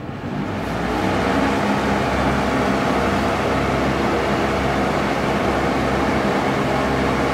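Giant stage fan running, blowing a strong current of wind: a steady rush with a low hum of steady tones. It comes up to full strength over about the first second.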